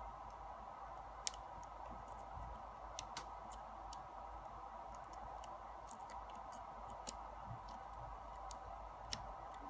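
Single-pin picking of a brass Yale pin-tumbler lock cylinder: small, scattered metallic clicks of the pick and pins, the sharpest just over a second in, over a faint steady hum.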